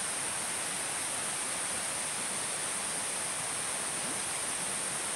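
Steady forest ambience: an even hiss with a constant high-pitched tone over it, with no distinct calls or knocks.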